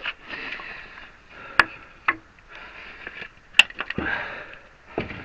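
A man breathing hard and sniffing while straining at a stubborn part, with a few sharp clicks, the loudest about one and a half and three and a half seconds in.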